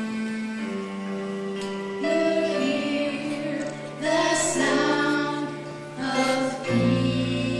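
Live music: voices singing together, with female and children's voices, over sustained instrumental accompaniment; a deeper bass note comes in near the end.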